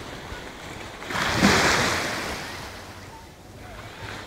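Small sea waves washing at the shoreline; one wave surges in about a second in, then fades away over the next two seconds.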